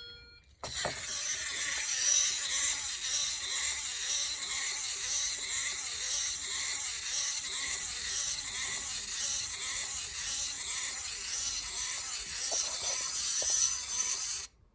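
Steady hissing noise that starts just under a second in and cuts off abruptly near the end.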